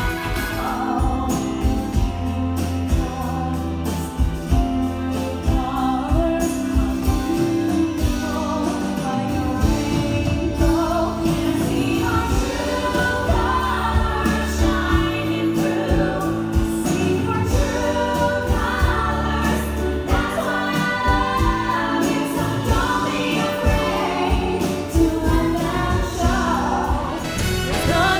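Stage-show music: singers with microphones and backing vocals over a band accompaniment, cutting to another number near the end.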